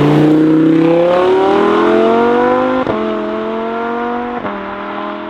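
Lamborghini Huracan's V10 engine accelerating hard, its pitch climbing through the gears with two quick upshifts, about three and four and a half seconds in, as the car pulls away.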